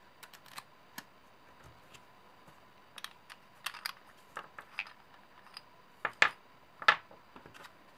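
Scattered small clicks and taps of a metal penlight flashlight being handled and taken apart, its parts and batteries set down on a tabletop, with two louder knocks about six and seven seconds in.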